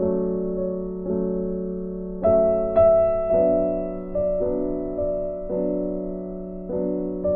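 Background music: a slow, gentle piano piece, with chords struck about once a second and left to fade.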